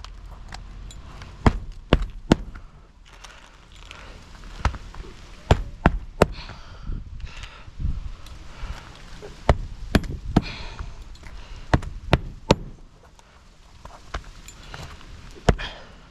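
Nails being driven into asphalt roof shingles: about fifteen sharp strikes at an irregular pace, often in quick groups of two or three, with softer rustling of shingles between them.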